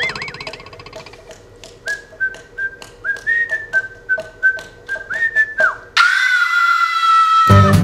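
A man whistling a tune in short notes over a light, regular ticking beat, then holding one long, louder note that sags a little in pitch. The band, led by double bass, comes in right at the end.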